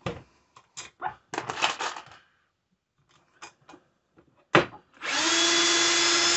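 A Milwaukee M18 cordless drill starts about five seconds in and runs at high speed with a steady pitch, spinning an RCBS case trimmer's cutter to trim a .223 brass case. Before it, there are light clicks and clinks as a case is set in the trimmer's spring-loaded jaws, and a sharp knock just before the drill starts.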